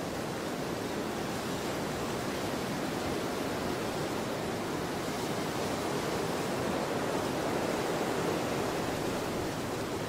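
Steady rushing ambience of wind and surf, with no distinct events, swelling a little about seven to eight seconds in.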